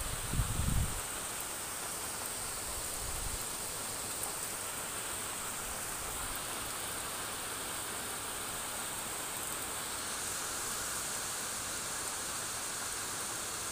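Steady hiss of rain falling outdoors, with a brief low rumble on the microphone about half a second in.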